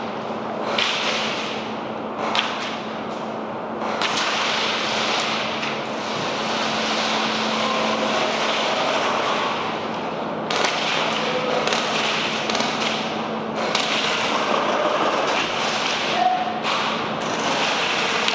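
Airsoft gameplay: a steady rushing noise of movement on the microphone, broken by scattered sharp clicks and knocks, likely airsoft guns firing and gear knocking.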